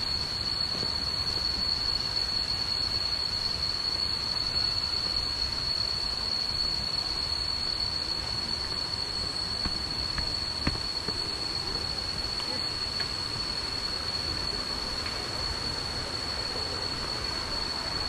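Steady rushing of a waterfall's cascades, with a constant high-pitched whine running over it.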